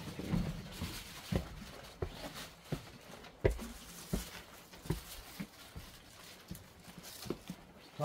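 Footsteps climbing log steps and walking on a sandy dirt floor: a string of irregular knocks and scuffs, a little under a second apart.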